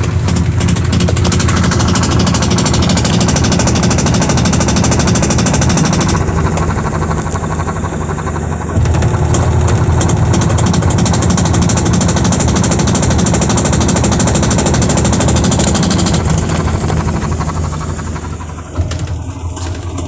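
Sharp automatic washing machine on spin-dry, its drive and tub making a loud, fast, rough knocking rattle: the very noisy spin that the repairer traces to a defective tub assembly. The noise eases somewhat near the end, with a single sharper knock just before it stops.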